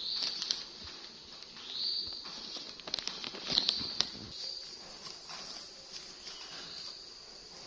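Plastic wrapping of a pack of disposable diapers rustling and crinkling as it is pawed and pulled at, with a cluster of sharp crackles about three to four seconds in.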